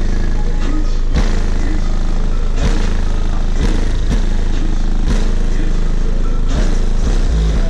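Bass-heavy music played very loud through a car's competition sound system, a deep steady bass with sharp beats every second or so.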